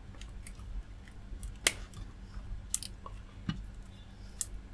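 Side cutters working on a wire and small crimp terminal: several separate sharp snips and clicks, the loudest a little under two seconds in.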